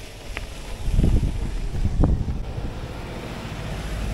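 Subaru Forester driving past on a gravel track, its engine and tyres on the gravel growing louder as it draws level near the end. Wind buffets the microphone in two strong gusts about one and two seconds in.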